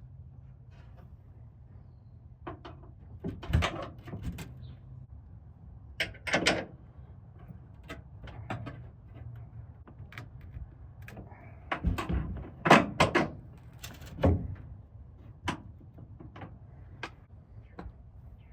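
Scattered metal clanks and knocks from work on a pickup truck's tailgate and its assist-shock mounting, coming in irregular clusters. The loudest strikes fall near the middle and about three-quarters of the way through.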